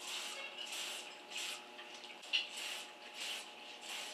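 Aerosol can of wax-based chain lube sprayed onto a suspension fork's stanchions in about seven short hissing bursts, roughly half a second apart.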